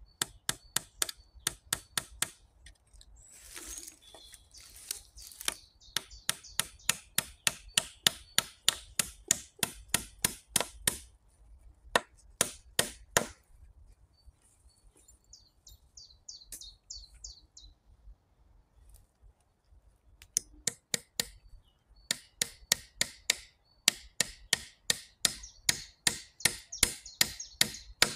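Fast, regular strikes of a tool on wood, about three a second, in long runs broken by a few pauses, as cross pieces are fixed onto a pole-built bunk bed.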